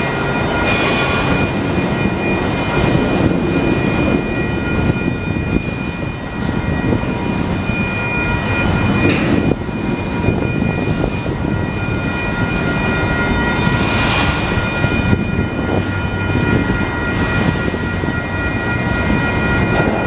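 Freight train cars rolling past at close range: autoracks, tank cars and flatcars, with a steady rumble of wheels on rail and a steady high-pitched whine over it. There are a couple of sharper clanks about nine and fourteen seconds in.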